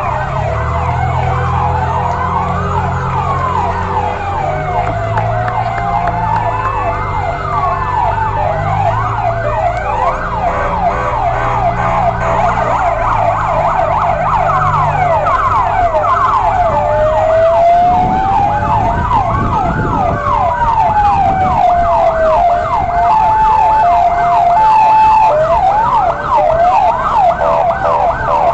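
Sirens of several fire trucks sounding at once: slow rising and falling wails overlap with faster yelping cycles, and a two-note alternating siren joins briefly near the end.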